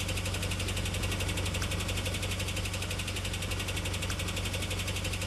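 Toyota van's petrol engine, converted to run on hydrogen, idling steadily at the tailpipe.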